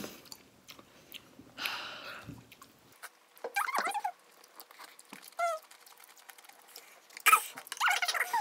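A woman's wordless pained whimpers and squeals as she reacts to very spicy food, with a short falling whine in the middle and louder squealing near the end. A hissing rush of air comes about two seconds in, and light chopstick clicks sound throughout.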